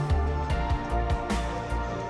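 Background music with a steady beat, held chords and a heavy bass.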